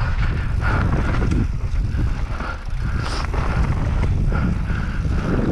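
Mountain bike riding fast down a rough dirt trail: heavy wind buffeting on the microphone, with the bike's running noise and many short rattles and knocks as it goes over rough ground.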